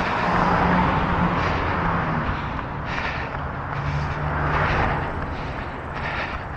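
Road traffic going by: car engine and tyre noise that swells near the start and again about four to five seconds in.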